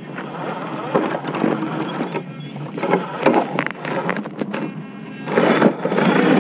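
RC4WD Ford Raptor 1/10-scale crawler truck driving over loose rock and gravel: a whirring electric motor and drivetrain under irregular crunching and clattering of tyres on stones, louder near the end as the truck passes over.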